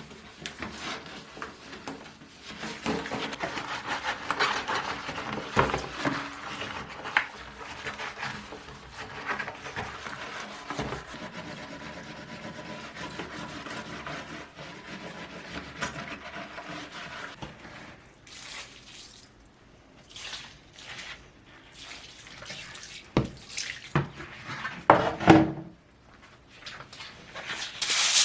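Water running from a tap into a sink, followed in the second half by several sharp knocks and clatters of household objects being handled.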